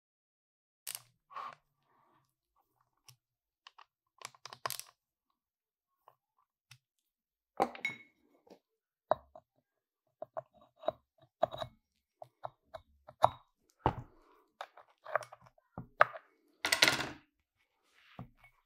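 Irregular clicks, knocks and short scrapes of metal parts being handled: toothed belt pulleys and small fittings of a Bridgeport milling head lifted, turned and set down in their pulley housing, busiest in the second half.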